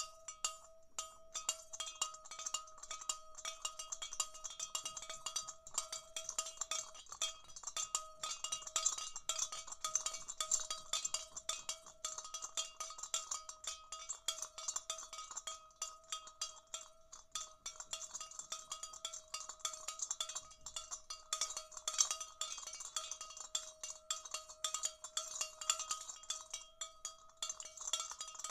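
Small hand-held metal bell swung continuously, its clapper striking again and again in quick succession. It keeps up a steady ring at one pitch with a bright upper shimmer.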